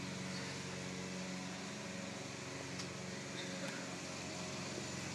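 Steady low mechanical hum with an even hiss, with a few faint clicks.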